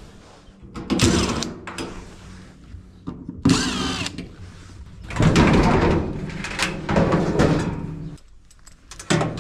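Metal dryer panels and tools being handled, clattering and scraping in several irregular bouts with a brief squeak, as the dryer is opened up to test its heating circuit for a no-heat fault. A steady low hum runs underneath.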